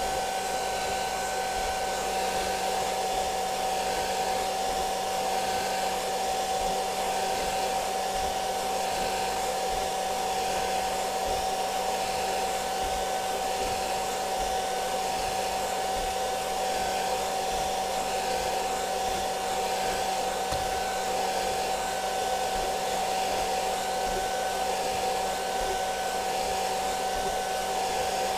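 Hair dryer running steadily, blowing onto an inkjet printer as a print on tracing paper comes through, with a steady whine over its airflow. A fainter, higher tone comes and goes throughout.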